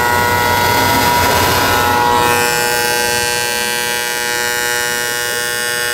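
A long, steady horn blast of several notes sounding together, like an air horn or train horn.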